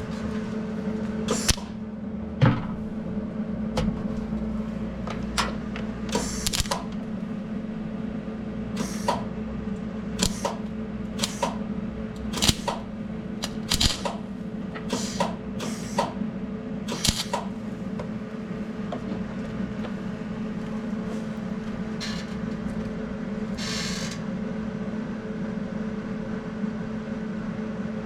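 MIG welder attempting short tack welds: a steady machine hum with about a dozen brief bursts of arc crackle, each about half a second, plus scattered sharp clicks.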